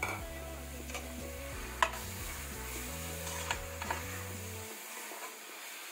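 Metal spoon stirring minced meat through frying onions in an aluminium pressure cooker: scraping with a few sharp clinks against the pot, the loudest about two seconds in, over a faint steady sizzle.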